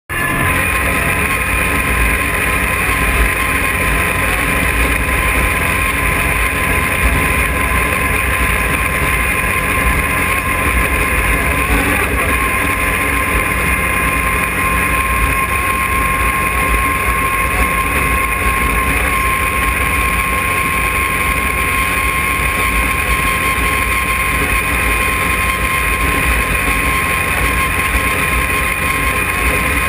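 Arctic Cat Wildcat side-by-side cruising steadily at about 90 km/h on a gravel road: an even engine and drivetrain drone with a steady whine, over heavy low road and wind rumble.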